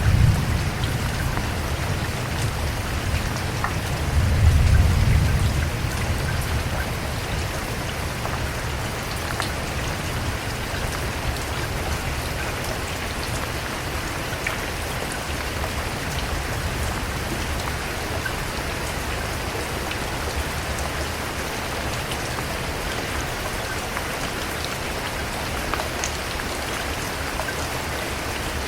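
Steady rain falling on a surface, with many separate drops ticking through it. A low rumble swells right at the start and again about four seconds in, then fades.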